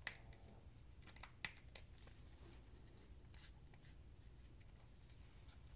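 Near silence with a few faint clicks and light handling noise as a knife and leather sheath are handled. The clearest click comes just after the start, another about a second and a half in.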